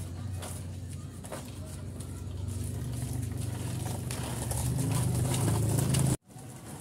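Plastic wheels of a child's light-up ride-on toy rolling over rough concrete, a steady low rumble that grows louder as it comes close and then cuts off abruptly near the end.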